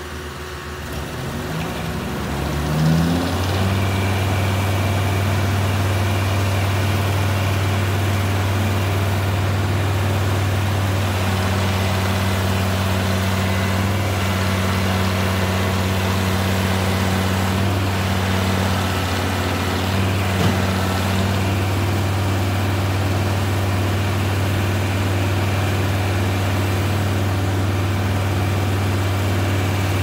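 A diesel engine of heavy equipment revving up over the first few seconds, then running steadily at a constant speed. One short knock comes about two-thirds through.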